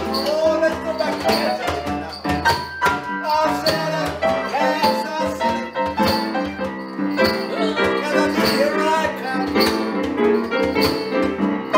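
Upright piano played with a steady, bouncy beat while voices sing along.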